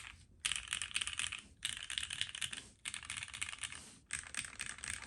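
Typing on a mechanical keyboard fitted with Gateron Oil King linear switches in a POM plate with no foam: fast keystrokes in runs of about a second with short pauses between. The typing is clacky, with a fairly deep tone.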